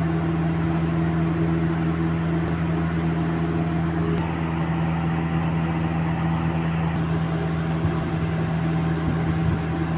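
Steady mechanical hum with a constant low drone and a rushing noise over it.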